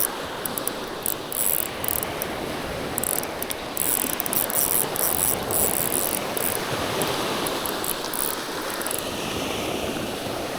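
Fishing reel being cranked, winding in line with a hooked fish on, a steady whirring and ratcheting.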